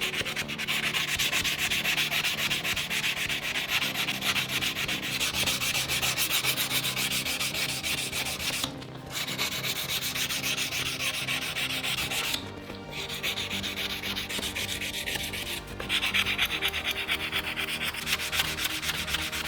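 Sandpaper scraping along a forged Damascus steel knife blade as it is sanded to 220 grit, a steady gritty rubbing that breaks off briefly a few times.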